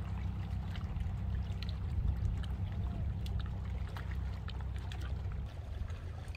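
Cat lapping water from a plastic bowl, small wet clicks and splashes over a steady low wind rumble on the microphone; the rumble drops near the end.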